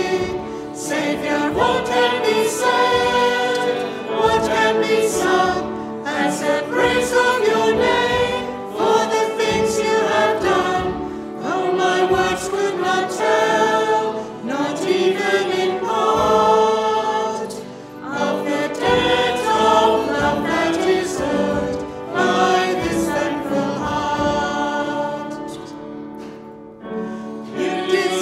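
Worship singers singing a Christian worship song together, with instruments accompanying them.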